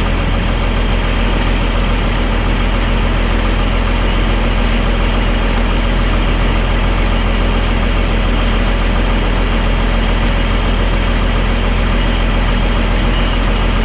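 Caterpillar D6D bulldozer's six-cylinder diesel engine idling steadily, with a constant low rumble and no change in speed.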